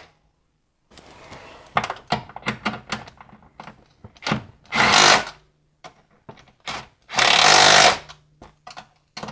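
Cordless impact wrench hammering the sway bar bracket fasteners tight: a short burst midway and a longer one later, with light clicks and knocks of the tool and socket being handled in between.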